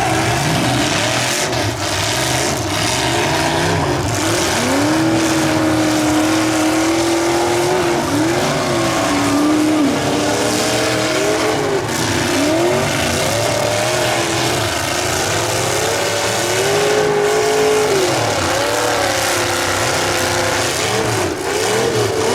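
Demolition derby cars being driven hard: several engines rev up and down at once over a steady din, with tires skidding and occasional sudden bangs.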